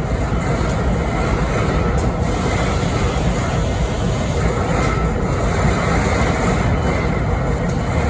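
BNSF diesel-electric locomotive idling: a steady low rumble with faint steady tones above it, the engine making the strange noise it is being recorded for.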